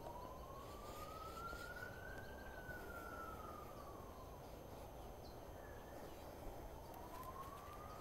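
Faint emergency-vehicle siren wailing: one clean tone that rises slowly for about two seconds, falls away, then starts rising again in the second half, over a low outdoor background hiss.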